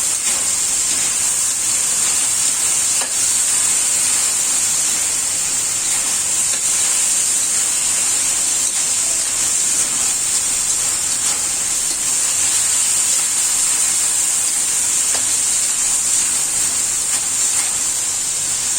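Shredded beef and five-spice bean curd sizzling and steaming in a wok with a little water over medium heat: a steady hiss.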